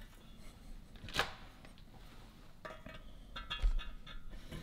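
Metal engine parts and tools clinking and knocking as they are handled: a sharp click about a second in, then a run of ringing metallic clinks in the second half.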